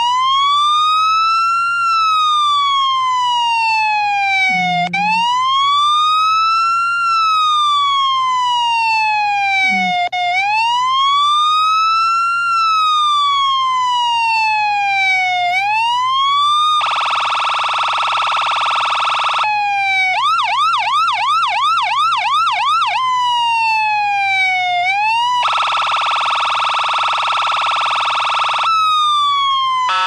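Police siren wailing in slow rising and falling sweeps about five seconds each. Past the halfway mark it switches to a steady horn-like blast, then a fast yelp of about four sweeps a second, more wail, a second steady blast, and wail again.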